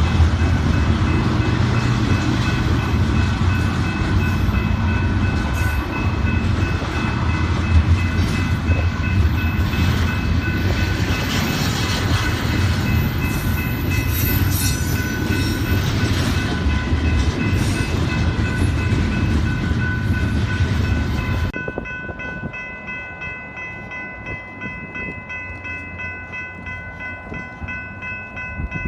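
Diesel freight train passing close by, a loud low rumble of locomotives and rolling cars with a steady horn-like tone over it. About three quarters of the way through the sound drops abruptly to a quieter, more distant train sound while the tone carries on.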